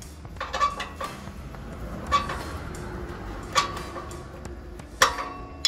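Metal hand tools clinking against the exhaust silencer mounting of a Royal Enfield Bullet 350 as its bolts are loosened: a handful of sharp, ringing metallic clinks at irregular intervals, the loudest about five seconds in.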